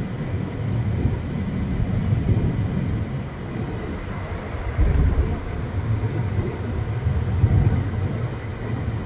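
Car on the move at road speed: a steady low rumble of engine and tyre noise.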